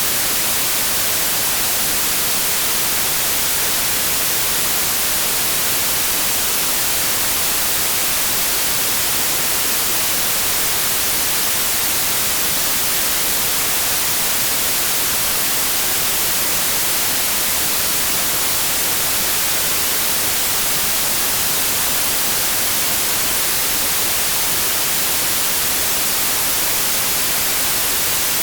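Steady, unchanging white noise: an even hiss, strongest in the high frequencies, with no tones or events.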